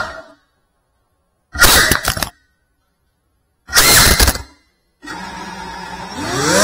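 Sound cuts out into silence, then two short loud bursts about two seconds apart, then a quieter hum whose pitch rises near the end as the FPV quadcopter's electric motors spin up into a high whine.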